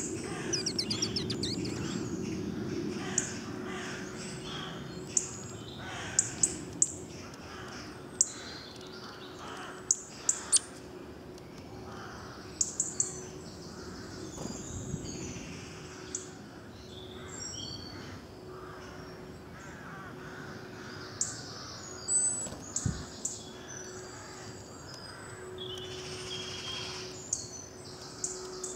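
Wild woodland birds calling, with many short, sharp, high-pitched chirps scattered irregularly throughout over a faint steady low hum.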